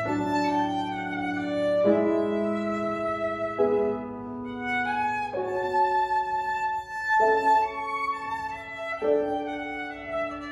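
Violin and grand piano playing a slow duet, the violin holding long bowed notes over piano chords that change every one and a half to two seconds.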